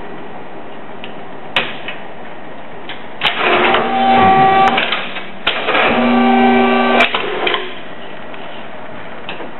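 Triumph 6550 electric paper guillotine cutter running a cutting cycle: a click, then two runs of about two seconds each of motor whine over a mechanical rattle, with a short break between them.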